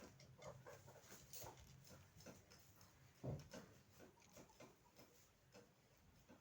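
Near silence: room tone with faint scattered clicks and taps, and one soft thump about three seconds in.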